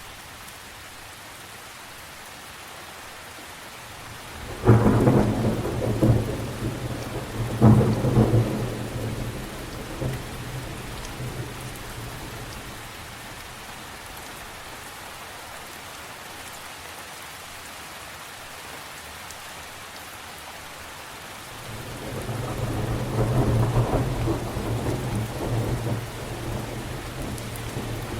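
Thunderstorm: steady rain with two sudden claps of thunder a few seconds apart near the start, each fading slowly, and a long rolling rumble of thunder later on.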